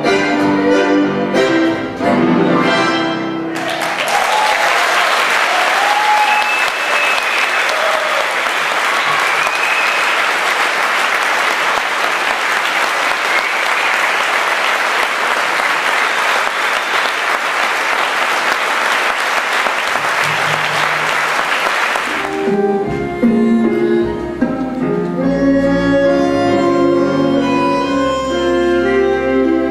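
A tango orchestra of piano, bandoneons, violins and double bass plays the final bars of a piece, ending a little over three seconds in. The audience then applauds steadily for about nineteen seconds. Near the end the orchestra starts the next piece, with piano and double bass prominent.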